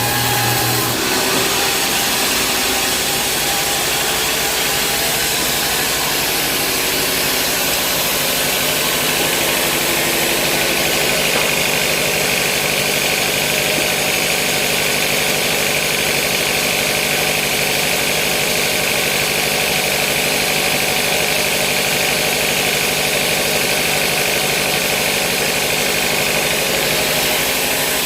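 A sawmill's vertical band saw and its drive running steadily with a loud mechanical drone; a higher steady whine comes in partway through and holds until near the end.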